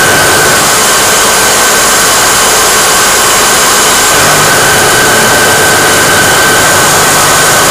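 Automatic assembly machine for quick-install nylon anchors running steadily: a loud, even machine noise with a constant high whine.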